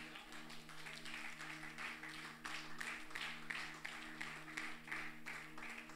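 Soft sustained keyboard chord, a few low notes held steadily, with faint scattered clicks over it.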